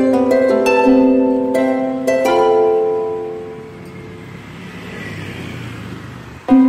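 Background music: a melody of plucked string notes that ring and die away, fading out midway, with a new phrase starting near the end.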